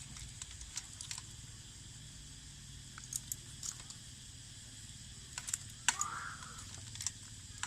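A steady high-pitched drone of cicadas, with scattered sharp clicks and taps from the meal, the loudest just before six seconds in, and a brief faint chirp just after.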